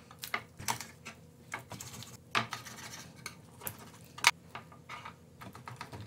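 Kitchen knife tapping and clicking against a wooden cutting board while a raw whole chicken is cut into parts: irregular sharp clicks, the loudest about four seconds in.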